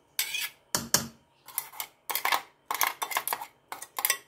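A spoon scraping and knocking against a mixer-grinder jar while ground masala paste is emptied out of it: a run of short scrapes and clinks, about two a second.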